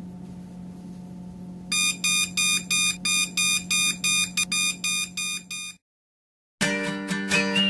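RCA digital alarm clock beeping in a fast, even series of high-pitched beeps, about three a second. The beeps start about two seconds in, over a low steady hum, and cut off suddenly about six seconds in, as the alarm is switched off. Strummed acoustic guitar music with whistling begins near the end.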